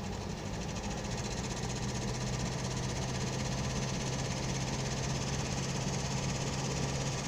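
Toyota 2L-TE four-cylinder turbodiesel idling with an unexplained extraneous knock, though the engine has been rebuilt and fitted with new injector nozzles. A steady low hum joins about a second in.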